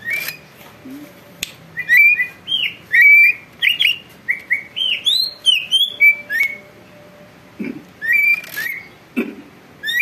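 Green leafbird (cucak ijo) singing a fast, varied run of short whistled notes that swoop up and down in pitch, starting about a second and a half in.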